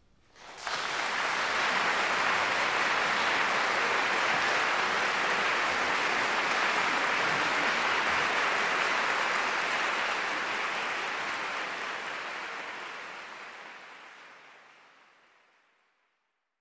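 Audience applause breaking out about half a second in, a dense, steady clapping that fades out over the last few seconds.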